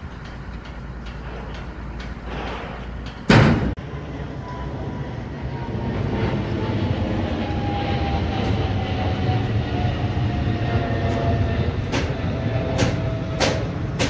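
A dump truck's diesel engine running low while it tips its load, cut off by a sharp knock about three seconds in. Then a jet airliner passing low overhead: a steady roar with a whine that slowly falls in pitch as it goes by, and a few sharp clicks near the end.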